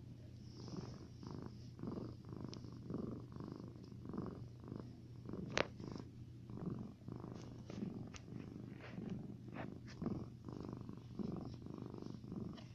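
Domestic cat purring while being stroked, a low rumble that pulses about twice a second with its breathing. A few sharp clicks cut in, the loudest about five and a half seconds in and more in the second half.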